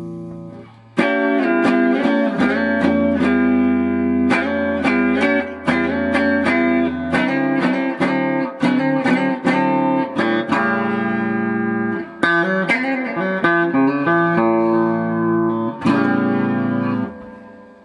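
Telecaster electric guitar played clean through a Fender Tone Master Deluxe Reverb amp with no effects, on the middle pickup position: picked chords and single notes begin about a second in, and the last chord rings and fades near the end.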